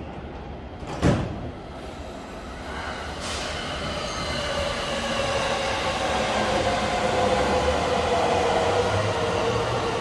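Electric commuter train pulling out of the station and picking up speed alongside the platform. A sharp clunk comes about a second in, then a rumble that grows louder, with a motor whine that climbs in pitch in steps as the train accelerates.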